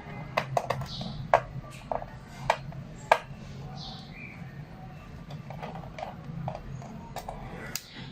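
Irregular small sharp clicks and taps of a screwdriver and small metal screws against the plastic underside of an HP 255 G4 laptop as its screws are taken out one by one. The loudest clicks come in the first three seconds.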